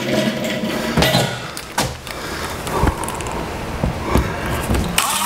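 Scattered knocks and clunks of a small step stool being set down and climbed onto, six or so separate hits. A cordless drill starts up right at the end to drive a screw into the wall through an MDF panel.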